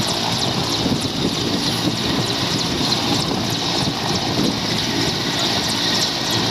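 Indian Air Force Mil Mi-17-type helicopter running on the ground with its main rotor turning: a steady, loud, unbroken noise of twin turboshaft engines and rotor.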